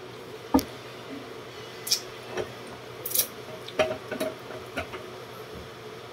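Steady hum of a small electric fan, with a few scattered short clicks and smacks, the loudest about half a second in.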